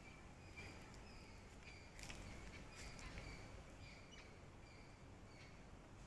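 Faint bird calls: short chirping notes repeated about twice a second over a low background hum, with a couple of brief clicks about two and three seconds in.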